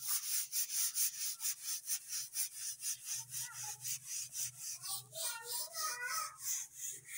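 Soft grass broom sweeping dust off a floor in quick, short, even strokes, about four or five a second.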